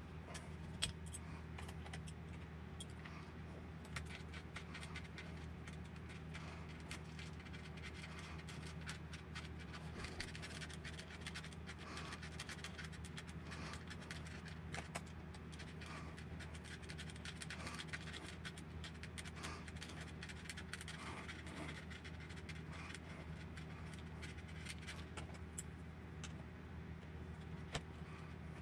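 Small metallic clicks, taps and scrapes of hand tools on RC car parts: a hex driver turning screws while the shock absorbers are fitted to the front suspension of a 1/8-scale Serpent Cobra SRX8 GT. A steady low hum sits underneath.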